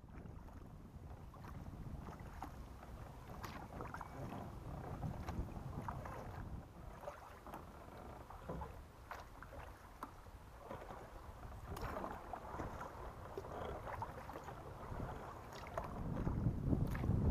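Kayak paddle strokes in water: irregular splashes and drips over a low wind rumble on the microphone, which grows louder near the end.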